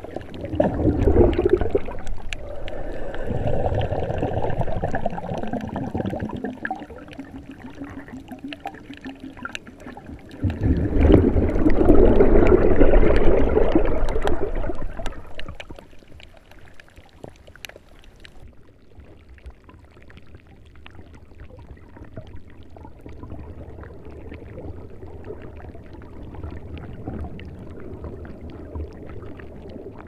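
Underwater water sound: a deep rumbling wash with two long surges of bubbling and gurgling, the louder one about ten seconds in, then a softer steady wash.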